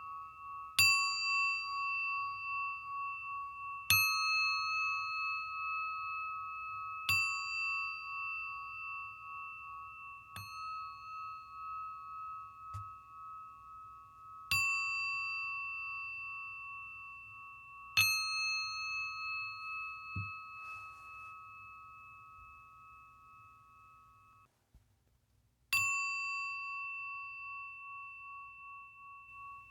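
Singing bowl struck about every three to four seconds, each strike ringing on in a pulsing, wavering tone that slowly fades, with a couple of softer taps between. Near the end the ringing cuts off abruptly, and a fresh strike follows about a second later.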